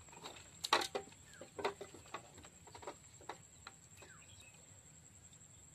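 Irregular sharp clicks and knocks from the bamboo poles of a lift-net frame as a man climbs it. The loudest knock comes under a second in, with scattered lighter ones after.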